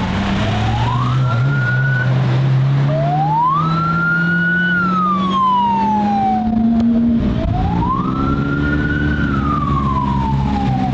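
Police escort siren wailing, rising and falling slowly about every four seconds, over a car engine's steady hum that climbs gradually and drops about seven seconds in.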